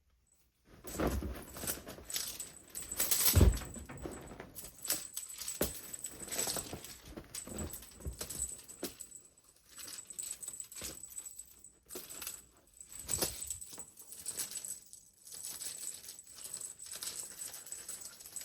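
Clattering, clicking and rustling of a cat teaser-wand toy during a cat's play, in irregular spurts with short pauses, the loudest a thump about three and a half seconds in.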